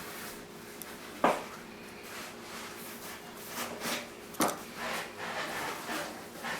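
Small plastic model-kit parts and a screw being handled on a work surface: two sharp clicks, one a little over a second in and another about three seconds later, with light tapping and rustling between them and after.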